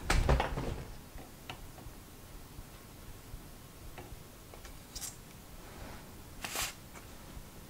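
Bulb-type desoldering iron working on a circuit board's solder joints. There is a bump of handling at the start, then faint scattered ticks, and two short hisses of air about five and six and a half seconds in as the rubber bulb is squeezed and let go to suck up the molten solder.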